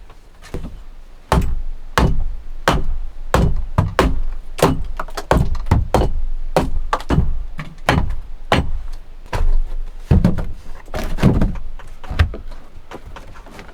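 A tool striking wood again and again in a steady rhythm, about one heavy blow every two-thirds of a second, with a few quicker strikes around ten seconds in.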